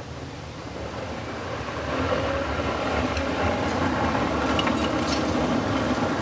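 Classic Range Rover's engine running under load as it drives up a gravel trail, growing louder about two seconds in and then holding steady. A few sharp clicks come near the middle.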